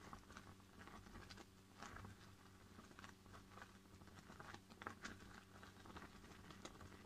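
Faint soft scraping and small irregular clicks of a silicone spatula stirring oat porridge as it bubbles in a stainless saucepan, over a low steady hum.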